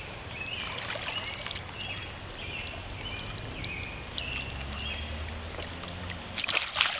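Shallow creek water sloshing and splashing as a freshly shot gar thrashes on the bowfishing line, with a louder burst of splashing about six and a half seconds in.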